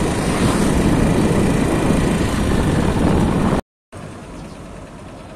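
Loud, steady rumbling noise, wind buffeting a phone's microphone outdoors. It cuts off abruptly a little past three and a half seconds, and after a short gap a much quieter outdoor background hum follows.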